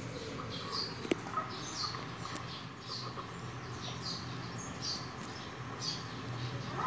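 A small bird chirping over and over, one short high chirp roughly every half second, over a low steady hum. A sharp click comes about a second in and another a little later.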